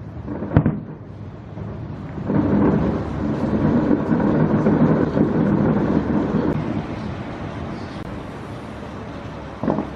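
Aerial fireworks exploding: a sharp bang just after the start, then from about two seconds a dense rumbling barrage of many overlapping explosions for about four seconds that slowly fades, and another bang near the end.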